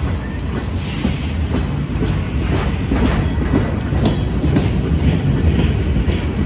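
Loaded flatcars of a rail train rolling past on the track: a steady heavy rumble of steel wheels on rail, with repeated clicks and knocks as the wheels run over the rail joints.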